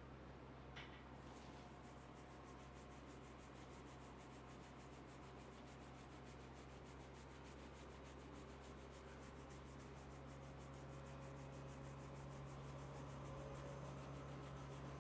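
Faint rubbing of hands over hair and scalp during a head massage, under a steady low hum, with a small click about a second in.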